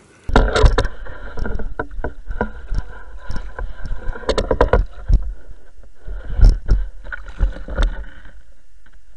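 A dog splashing and pawing in shallow water at a landing net, close up: a busy run of sloshing and heavy thumps that dies down about eight seconds in.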